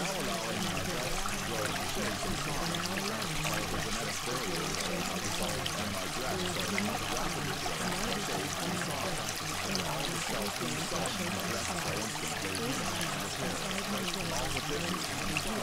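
Steady, unbroken sound of running water, like a stream or pouring water, used as a masking track.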